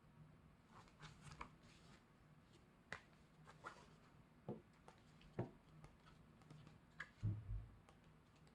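Hands handling a K-pop album's packaging and printed contents: scattered light clicks and taps of card and paper, with one louder, dull thump about seven seconds in.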